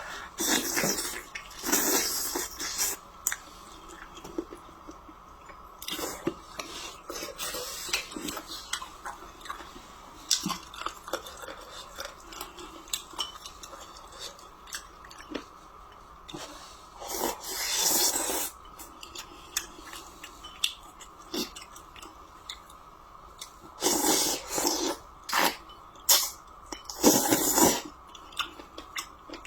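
Close-up eating sounds: chewing and biting into a braised chicken leg, with occasional clinks of utensils on a dish. The sounds come in irregular bursts, the busiest near the start and in the last few seconds, over a faint steady hum.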